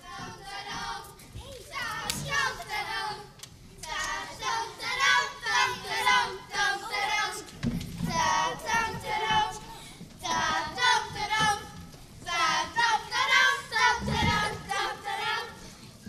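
A group of children singing together in a series of high phrases with short breaks between them. Two dull thumps are heard, about eight seconds in and near fourteen seconds.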